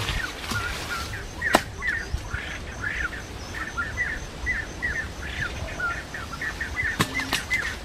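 A bird chirping: a quick run of short, repeated chirps. A sharp click comes about one and a half seconds in and more clicks come near the end.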